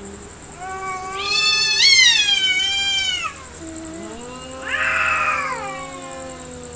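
Two cats yowling at each other in a standoff before a fight: one long howl that rises and wavers, then a lower drawn-out howl with a shorter, louder cry over it.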